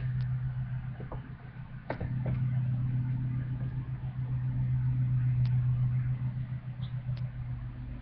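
A steady low hum that swells slightly in the middle, with a few faint short clicks.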